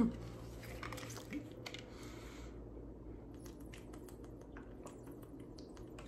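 A few faint small clicks and knocks, then quiet mouth and swallowing sounds as water is sipped from an insulated water bottle.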